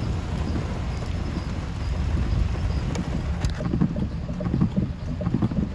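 Low, steady rumble of vehicles driving through floodwater, with water sloshing and wind noise on the microphone. A single sharp click comes about three and a half seconds in.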